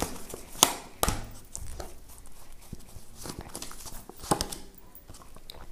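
Tarot cards being handled and shuffled by hand, with several sharp card snaps and slaps among softer rustling as cards are drawn and laid on the table.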